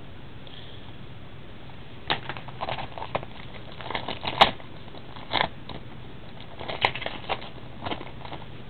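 Foil wrapper of a baseball card pack being crinkled and torn open by hand: a run of sharp crackles starting about two seconds in, the loudest a little past the middle.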